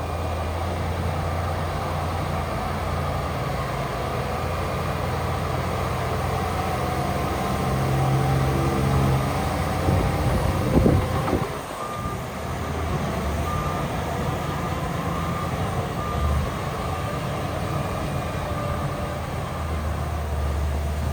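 Heavy diesel machinery running steadily, with a brief louder surge about halfway through. After it, a dump truck's reversing alarm beeps at an even pace for several seconds.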